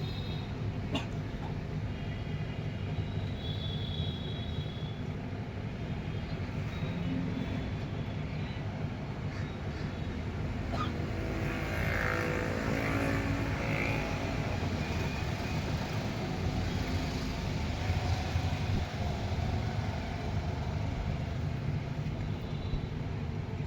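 Steady street traffic rumble, growing louder as a vehicle passes about halfway through.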